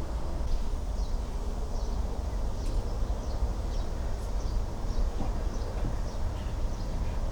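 Short, high bird chirps repeating about two or three times a second over a steady low rumble.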